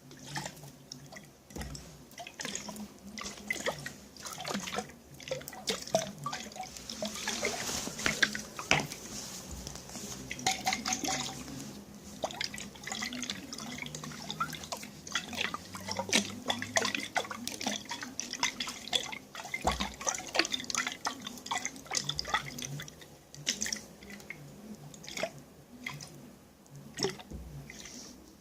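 Water dripping and splashing in containers: irregular drops and small splashes, thickening into a busier run of splashing about a quarter of the way through.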